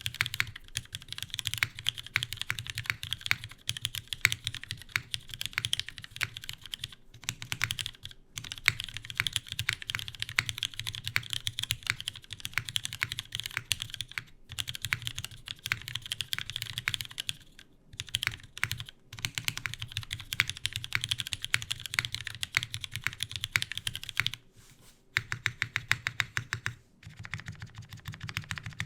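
Steady fast typing on a CW88 mechanical keyboard with lubed, filmed Cherry MX Vintage Black linear switches in a polycarbonate plate under GMK keycaps. The keystrokes come in a dense run, broken by a few short pauses, over a faint steady fan hum.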